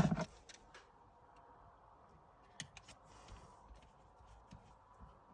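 Faint scattered clicks and small taps of an N gauge model locomotive being handled and opened up, with one louder clack at the very start.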